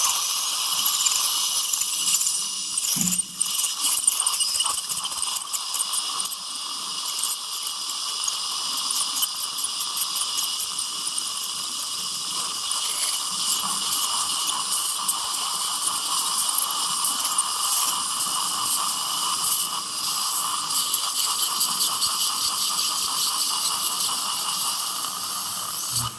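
Ultrasonic (piezoelectric) bone-surgery handpiece and surgical suction working in the mouth: a steady high whine and hiss with a fast, fine rattling crackle of irrigation fluid and blood being sucked up. There is a single low thump about three seconds in.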